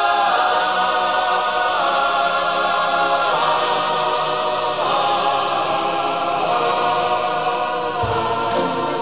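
Background music of held choral-style vocal chords that change every second or two, with a low beat coming in near the end.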